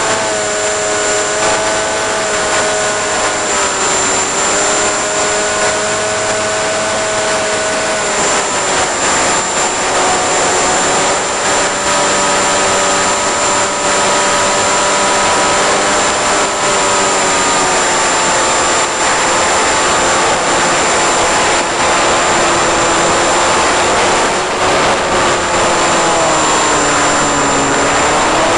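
Electric motor and propeller of a 1.5 m Eagle Wing RC flying wing in flight: a steady whine made of several tones over a rush of air noise. The pitch sags about four seconds in and picks up again after about eight, then drops lower near the end as the throttle comes back and rises again at the close, with a thin constant high whistle throughout.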